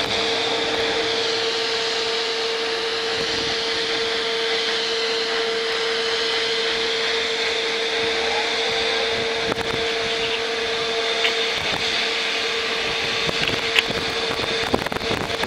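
Three EMD SD40-2 / SD40T-2 diesel-electric locomotives heard from afar: a steady engine drone with a whine in it, and a few faint clicks toward the end.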